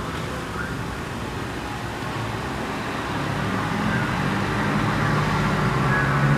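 Road traffic going by, with a motor vehicle's engine drone growing louder from about three seconds in as it comes closer.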